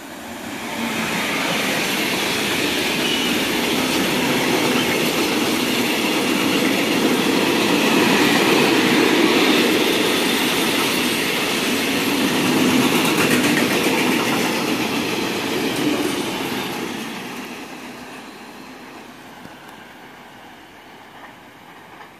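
Freight train of tank wagons hauled by an SBB Cargo class 482 electric locomotive passing at close range: steel wheels running on the rails in a loud, steady rush. It fades away over the last few seconds as the train recedes.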